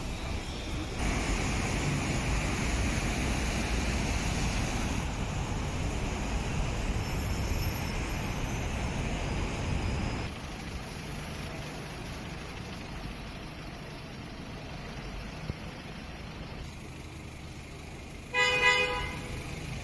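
Road traffic in a city street: a steady rumble of cars that drops to a quieter street hum about ten seconds in. Near the end a single short car horn toot is the loudest sound.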